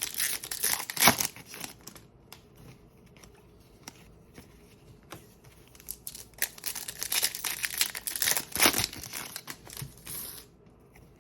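Crinkling and rustling of a foil trading-card pack wrapper as it is handled, in two bouts: through the first couple of seconds and again from about six to ten and a half seconds in.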